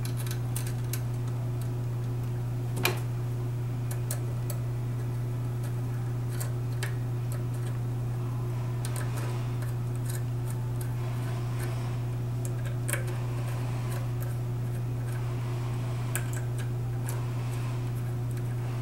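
Light metallic ticks and clicks of small adapter screws and a screwdriver as the screws are threaded into a 7.3L Powerstroke fuel injector, with a sharper click about three seconds in. A steady low hum runs underneath.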